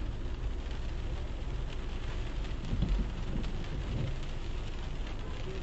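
Steady wet street noise: a hiss from rain and tyres on a wet road over a low rumble of traffic, swelling briefly about three seconds in as a car goes by.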